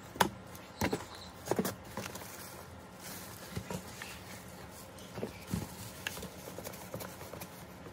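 Packaging and tools being handled and unwrapped: a few sharp clicks and knocks in the first two seconds, then softer scattered taps and rustles.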